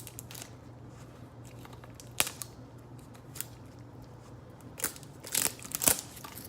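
Packaging of a Bondo body filler kit being opened by hand: scattered sharp plastic clicks and crinkles, then a quick run of louder clicks and scrapes near the end.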